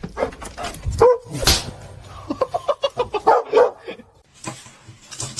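A dog barking and yipping, with a quick run of short barks in the middle.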